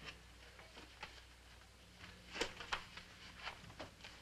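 Quiet room with a faint steady low hum and a few soft knocks, the clearest two coming about two and a half seconds in.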